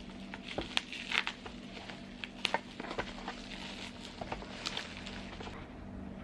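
A parcel being unpacked by hand: irregular crinkles, crackles and small clicks of packaging being handled and torn open, over a steady low hum.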